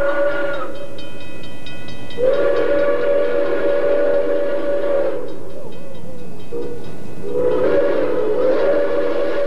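Steam whistle of an Erie Berkshire (2-8-4) freight locomotive, several tones sounding together, blowing a long blast, a short blast, then another long blast: the end of the long-long-short-long grade-crossing signal.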